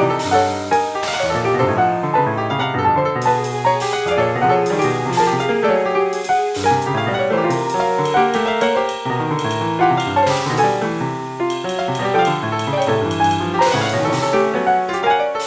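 Piano playing an original jazz composition: a continuous stream of chords and melodic runs without a break.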